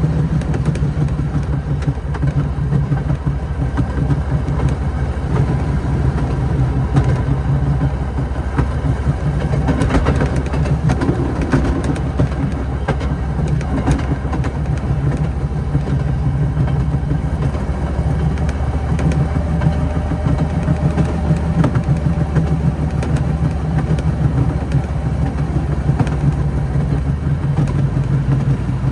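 Rail motorcar (track speeder) engine running steadily as it travels along the track, a loud, even drone with a few faint clicks.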